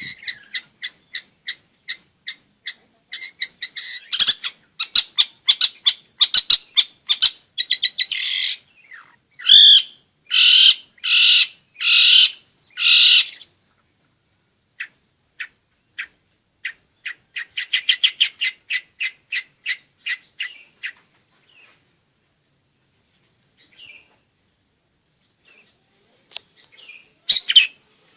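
Long-tailed shrike (cendet) singing: fast runs of short, sharp chattering notes, broken about ten seconds in by four longer, harsh calls. Another quick run follows, then a few seconds of only scattered faint notes, and loud notes start again near the end.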